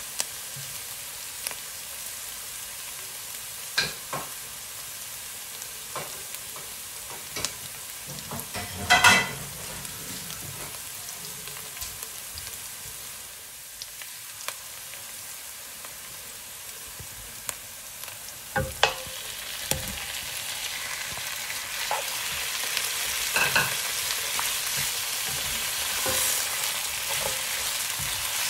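Food frying and sizzling in a cooking pan, with sharp knocks and scrapes of a stirring utensil at intervals, the loudest about nine seconds in and several close together around nineteen seconds. The sizzle grows louder toward the end.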